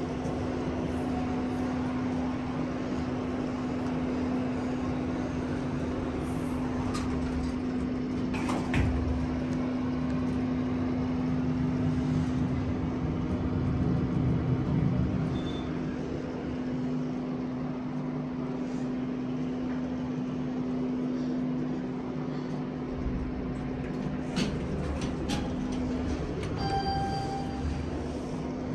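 Schindler hydraulic elevator running, heard inside the cab as a loud steady hum from its hydraulic drive. A few clicks and a short electronic beep near the end.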